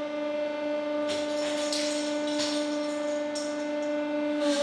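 Hydraulic press pump running with a steady drone while its spike drives into a block of Lego bricks, which crack and pop apart several times, loudest near the end.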